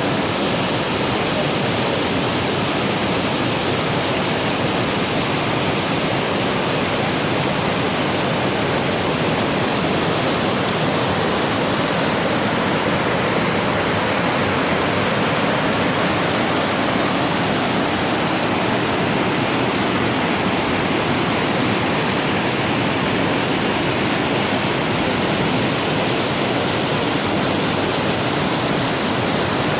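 Barskoon waterfall: water falling and crashing, a loud steady rushing roar that never lets up.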